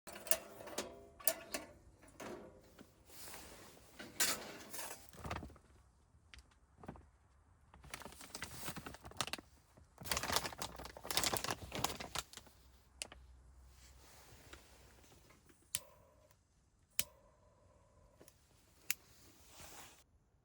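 Hands handling a telescoping stainless-steel fire-blowing pipe: irregular clicks, taps and rustling, busiest in the first half and thinning to a few sharp clicks near the end.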